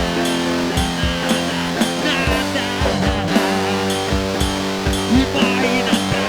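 Rock band music: guitars playing held chords over a steady drum beat.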